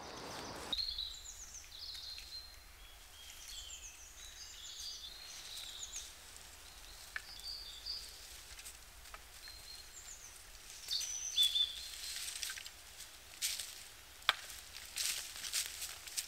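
Woodland birds chirping and singing in short phrases. In the last few seconds, footsteps crunch and crackle through dry leaf litter and twigs, coming closer.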